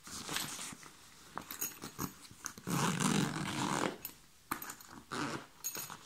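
A rucksack pocket's zip being pulled open, with rasps and clicks of nylon fabric being handled, and a dog growling.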